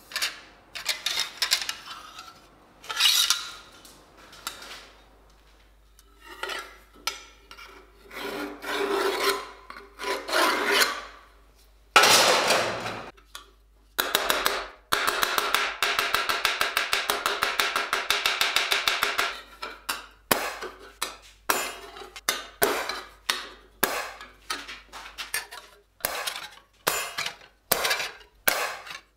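Steel being worked by hand with a file or rasp: long separate rasping strokes, then about halfway through a quick, even run of short strokes lasting several seconds, then a string of short separate strokes.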